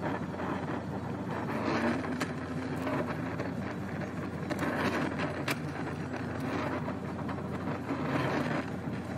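Brazing torch burning with a steady rushing noise while copper refrigerant lines are silver-soldered to a replacement refrigerator compressor, with a couple of light ticks.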